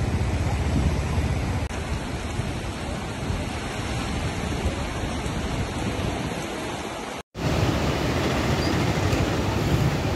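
Steady rushing noise of a swollen river in flood. The sound breaks off to silence for a moment about seven seconds in, where the footage is cut.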